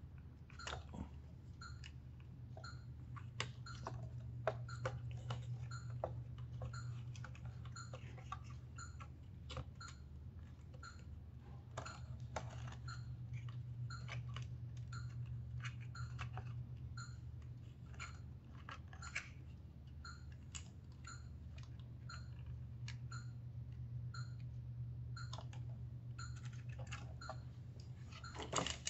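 Irregular light clicks and taps of small plastic wire connectors and cables being handled and unplugged inside a syringe pump's open plastic housing, over a steady low hum. A louder cluster of clicks comes near the end.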